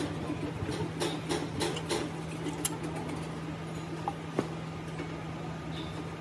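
Scattered light clicks and taps of hand tools on a six-cylinder diesel engine's cylinder head, dense at first and then sparse, with one sharp click about four seconds in, over a steady low hum.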